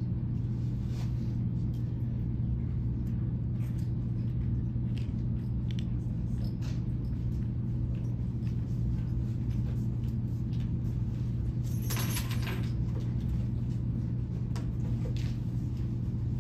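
Steady low hum of room machinery, with a few faint clicks and a brief rustle about twelve seconds in.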